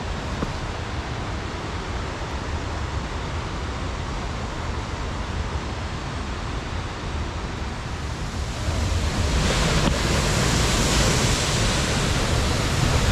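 Steady rushing noise of a waterfall, with wind rumbling on the microphone; about two-thirds of the way in the water gets louder and brighter.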